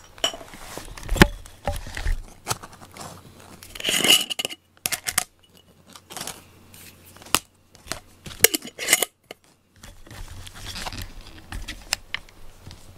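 Small objects being handled and set down: irregular clicks, knocks and rustling, with louder clattering about four seconds in and again about nine seconds in.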